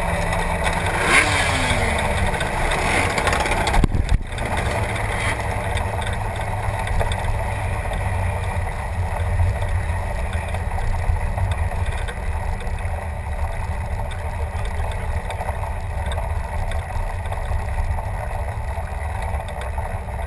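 Motorcycle engine running at low speed, heard from a camera mounted on the bike, as a steady low rumble; its pitch falls a few times in the first two seconds. A single sharp knock about four seconds in.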